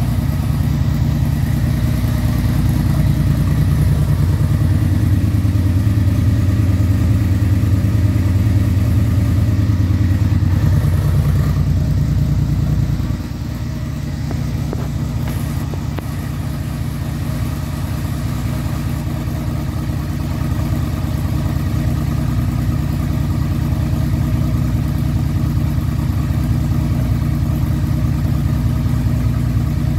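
1996 Yamaha V-Max's 1200 cc V4 engine idling steadily through a Marving aftermarket exhaust as it warms up from a cold start. Its sound drops a little about thirteen seconds in, then slowly builds again.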